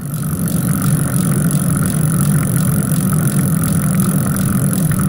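Steady road noise of a bicycle rolling along an asphalt road, picked up by a camera mounted on the handlebars, with faint light ticking through it.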